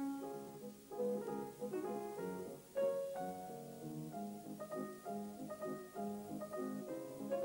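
Background music: a piano playing a melody with chords, in distinct notes.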